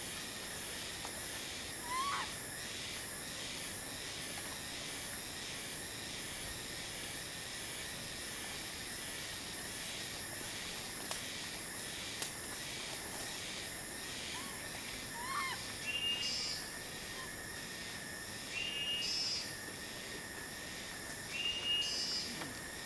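Outdoor natural ambience: a steady, high, pulsing insect drone. Short rising animal chirps come twice, and near the end there are three brief, flat, high calls.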